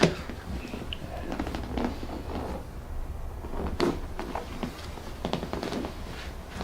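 Sharp knock right at the start and another about four seconds in, among smaller knocks and rustling from a patient shifting and being positioned on a chiropractic treatment table, over a low steady hum.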